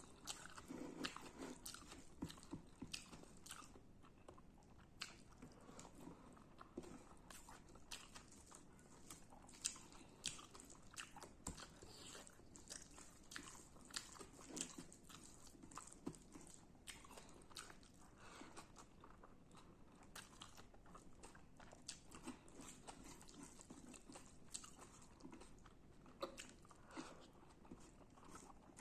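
A person chewing radish and rice close to the microphone, with many irregular crisp crunches, several a second, between softer wet chewing.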